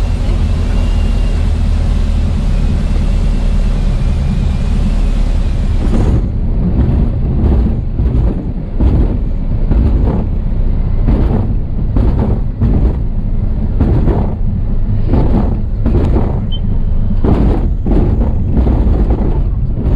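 Single-engine light aircraft heard from inside the cockpit: steady engine and airflow noise through the landing flare. About six seconds in the high hiss falls away, and irregular thuds and rattles come every second or so as the wheels roll over the grass runway, over the continuing engine rumble.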